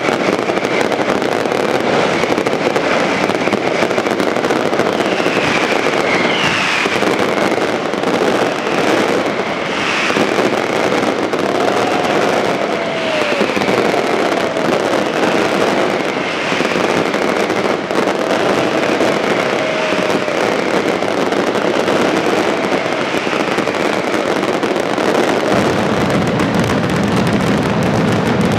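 Aerial fireworks display: a dense, continuous crackle of crackling stars and many small bursts. Short falling whistles repeat every second or two through the middle.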